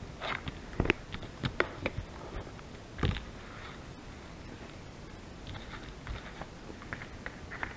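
Scattered small clicks and soft knocks from objects being handled close to the microphone, with one duller thump about three seconds in.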